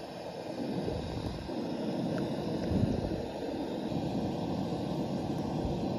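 Propane camp stove burner running on high under a saucepan, a steady low rushing roar of the gas flame, with the pot heating toward a boil.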